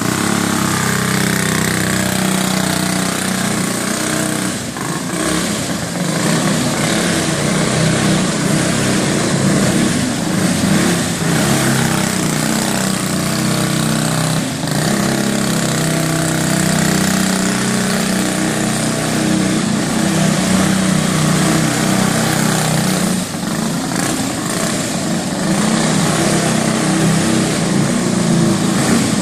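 Racing go-kart's small single-cylinder engine running under load as the kart is driven around, its note rising and falling with the throttle through the turns, inside a large empty warehouse.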